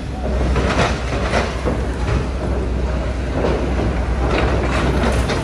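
Cars driving off a car ferry past the listener, engines and tyres over a steady low drone.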